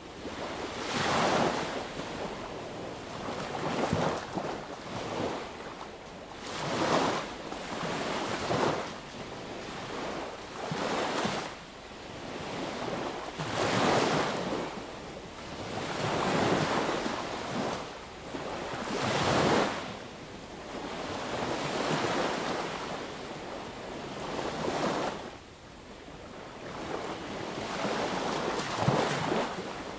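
Sea waves breaking and washing up on a sandy beach, a rushing surge every two to three seconds that swells and falls away.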